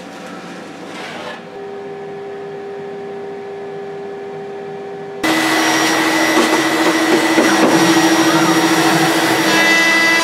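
CNC router spindle running with a steady whine; about five seconds in a vacuum dust extractor's loud rushing noise starts abruptly, with the spindle still running underneath at about 20,000 rpm.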